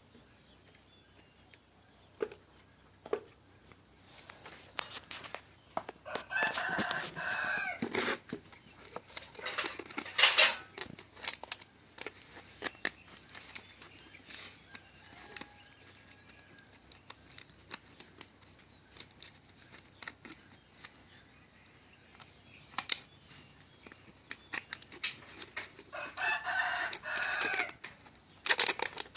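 A rooster crowing twice, each crow lasting about two seconds, about twenty seconds apart. Scattered clicks and knocks sound between the crows.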